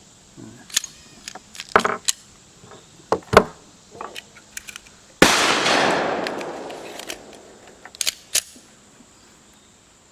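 A single .45 ACP pistol shot from a ported 1911 Commander about five seconds in, its report ringing out and dying away over a few seconds. Before it comes a run of sharp clicks and knocks, and two more clicks follow a few seconds after.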